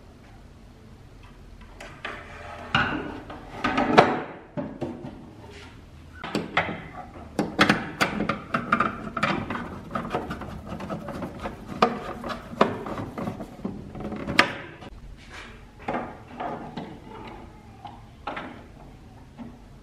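Hard plastic parts of a steam fan's housing being handled and fitted together: irregular clicks, knocks and scraping, with a screwdriver working a screw into the plastic.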